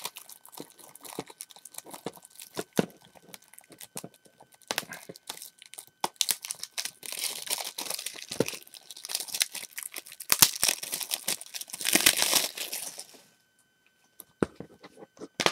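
Clear plastic shrink-wrap being picked at, torn and peeled off a Blu-ray case: scattered small clicks at first, then a long stretch of loud crinkling from about six seconds in, which stops suddenly near the end.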